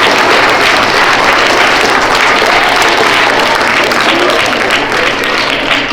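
Audience of schoolchildren applauding in a hall, dense sustained clapping.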